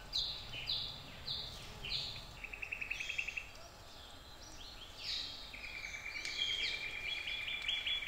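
Wild birds calling in rainforest: a series of short, high, down-sliding notes about two a second, then fast rattling trills about two and a half seconds in and again in the second half.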